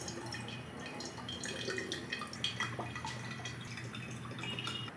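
Coconut water trickling and dripping from a tender green coconut into a glass, in many small splashes, over a low steady hum.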